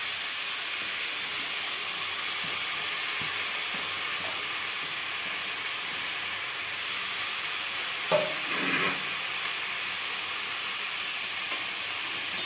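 Chopped vegetables sizzling steadily in hot oil in an aluminium kadai, a constant hiss. A short louder knock about eight seconds in.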